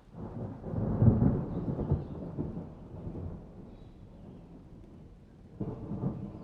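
Thunder in a summer storm: a deep peal breaks right at the start, swells to its loudest about a second in and rolls away over several seconds, then a second rumble begins near the end.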